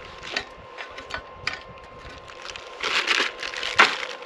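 Plastic zip bag crinkling and rustling as dumplings are picked out of it with chopsticks, with light clicks as they are set into an air fryer basket. A louder bout of crinkling comes about three seconds in, and a sharp click near the end.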